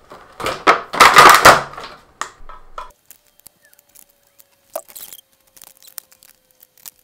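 Crackling and rustling of a clear plastic blister tray as toy parts are pulled out of it, loudest about a second in, followed by scattered small clicks and taps of hard plastic toy pieces being handled and fitted together.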